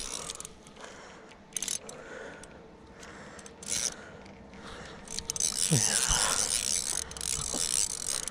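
Fly reel's click-and-pawl drag ratcheting in spurts as a hooked carp pulls line, with the longest run starting about five seconds in.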